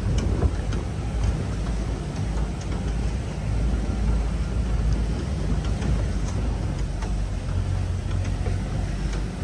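Ford 4x4 driving slowly along a rutted dirt track: a steady low rumble of the engine and tyres, with faint clicks and rattles now and then.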